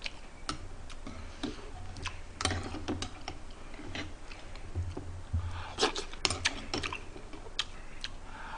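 Close-miked eating: a man chewing and smacking his lips in a string of irregular sharp clicks, with a spoon knocking against a small bowl. A quick run of clicks comes about six seconds in.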